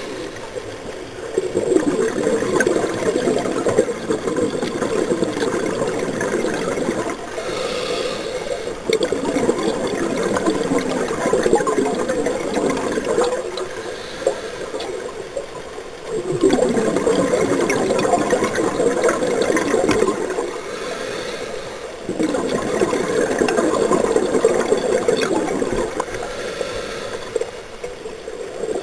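Scuba diver breathing through a regulator underwater: long gurgling streams of exhaled bubbles, each several seconds, alternating with short quieter inhalations through the regulator, several breaths in a row.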